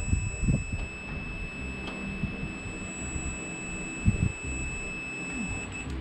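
Multimeter continuity beeper sounding one steady high-pitched beep, signalling a closed circuit between the test probes, and cutting off just before the end. A few low knocks sound near the start and about four seconds in.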